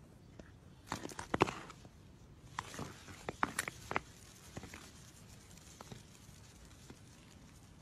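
Irregular light knocks and clicks, bunched in two quick flurries, one about a second in and another around three seconds in, with a few single taps after.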